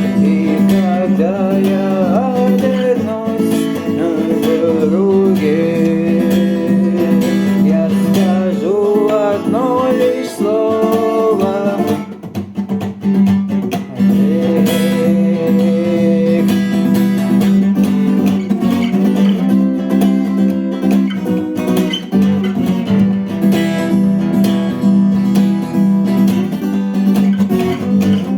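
Instrumental passage of a rock song: a guitar melody over a steady held low note. The music thins out briefly about twelve seconds in, then the full band returns.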